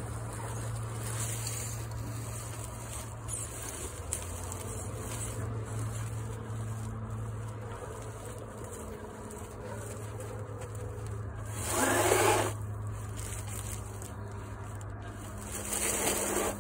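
Small electric RC truck motor buzzing steadily as the BOIFUN four-wheel-drive truck drives. There are two brief, louder rushes of noise, about twelve seconds in and again near the end.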